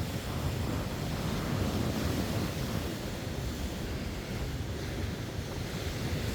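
Wind buffeting the microphone over the steady wash of heavy sea surf.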